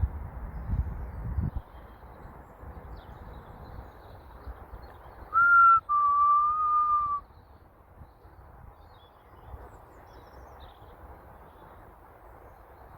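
A person whistling two notes about five seconds in: a short, higher note, then a slightly lower one held for over a second.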